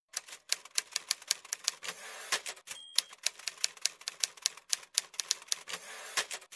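Typewriter sound effect: quick key clacks at about four a second, with a short high ding about three seconds in.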